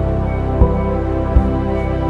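Background music: sustained chords over a low beat about every three-quarters of a second.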